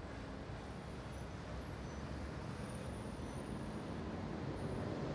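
Busy city street ambience: a steady din of traffic noise.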